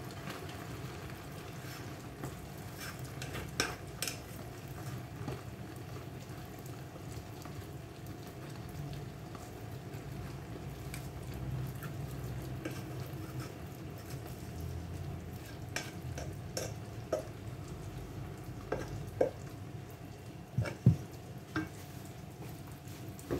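A spatula stirring a thick, sizzling sticky-rice mixture in a metal pan on the stove, with scattered taps and knocks of the utensil against the pan, several of them near the end. A steady low hum runs underneath.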